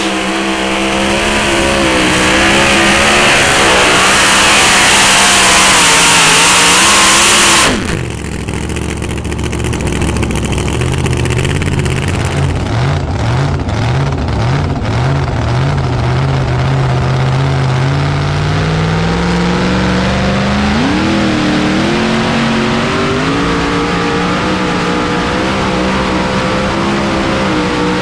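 Supercharged engine of a super modified two-wheel-drive pulling truck running flat out as it drags a weight-transfer sled, with a heavy hiss over it. About eight seconds in the sound changes abruptly: the hiss drops away and the engine's pitch climbs slowly as the truck pulls down the track.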